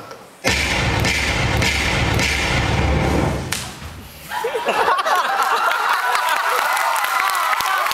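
A sudden loud bass-heavy hit from the dance track about half a second in, rumbling for about three seconds and fading as the routine ends. The audience then breaks into cheering and screaming from about four and a half seconds in.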